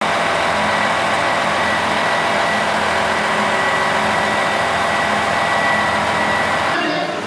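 KiHa 283 series diesel express train idling, its underfloor diesel engines running steadily with a thin, high steady tone over the engine sound.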